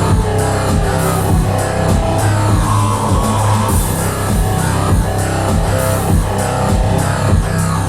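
Rock music with electric guitar and drum kit playing through a Samsung Q600A Dolby Atmos soundbar turned up to 80% volume.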